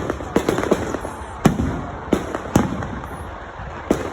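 Fireworks going off: irregular sharp bangs, a quick cluster in the first second, then louder single bangs about one and a half and two and a half seconds in.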